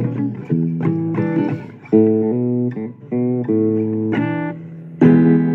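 Blues guitar music with no singing: a run of struck chords, each ringing for a moment, the loudest about two seconds in and again near the end.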